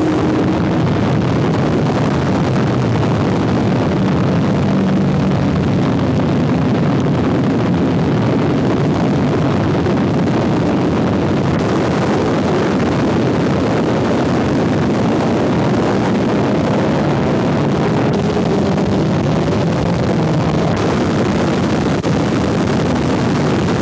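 Several car engines running as a group of cars laps a race circuit, heard under a constant wash of noise with no break.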